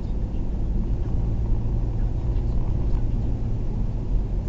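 A car driving at road speed, heard from inside the cabin: a steady low rumble of engine and tyre noise.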